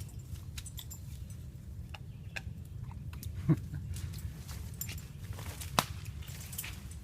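Footsteps on a woodland trail over a low steady rumble, with scattered light clicks and two sharper knocks, one about halfway through and one near the end.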